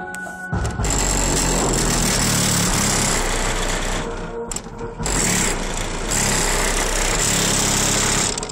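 Two 15-inch car subwoofers in a pickup truck playing bass-heavy music loud, the low bass coming in sections with brief drops at the start and about four seconds in. The sound is heavily buzzing and distorted.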